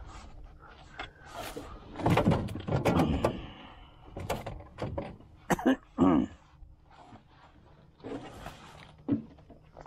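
Irregular knocks, thuds and rustling from a fishing net being hauled and handled. The loudest thuds cluster about two seconds in, and two sharp knocks come around six seconds.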